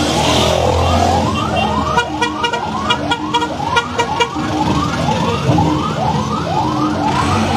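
A siren sweeping upward over and over, about two rising whoops a second, over music.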